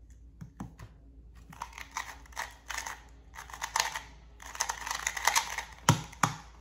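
Qiyi MS 2x2 speedcube turned fast during a speed solve: quick, irregular plastic clicking of its layers snapping round. Two louder thuds come near the end as the solve finishes on the timer mat.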